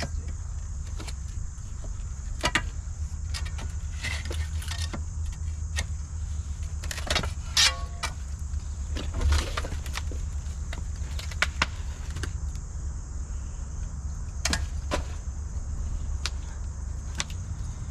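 Concrete forms being pried and pulled off a landing: irregular knocks, clinks and scrapes, with a short squeak about seven seconds in, over a steady low hum.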